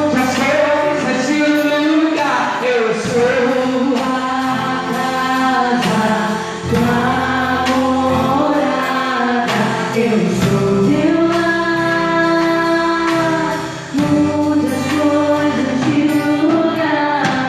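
Portuguese-language gospel worship song: a group of singers sustaining long notes in phrases of a few seconds each, over steady instrumental backing.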